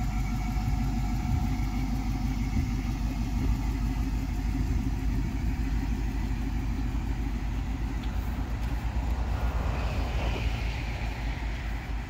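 GMC pickup truck's engine running at low speed as the truck pulls away slowly: a steady low rumble with an even pulse. A brief hiss rises and fades about ten seconds in.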